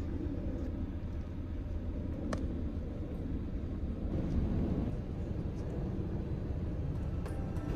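Steady low rumble of a car driving slowly along a street: engine and tyre noise.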